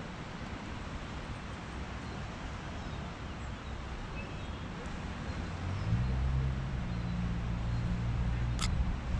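Outdoor seafront ambience: a steady wash of distant traffic noise, joined about six seconds in by a steady low engine hum. A single sharp click comes near the end.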